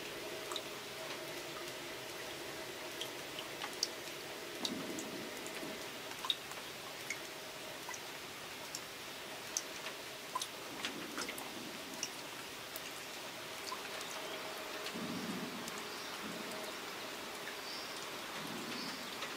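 Steady rain with scattered drops plinking and plopping into a metal bin brimming with water beneath a rain chain.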